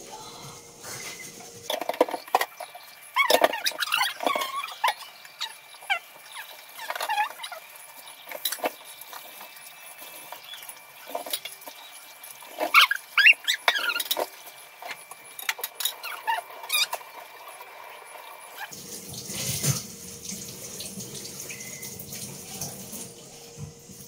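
Dishes being washed at a kitchen sink: plates and bowls clinking and squeaking as they are scrubbed, with water running from the tap. The clatter comes in bunches, loudest about two to four seconds in and again around twelve to fourteen seconds.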